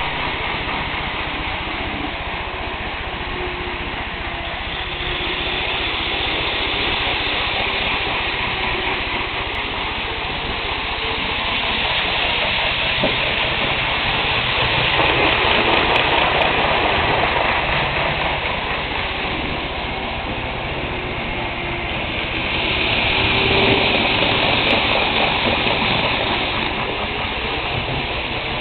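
Kato N-scale model of the Renfe AVE Series 100 running on the layout's track: a steady whirring rush of its motor and wheels on the rails, growing louder twice as it passes close by.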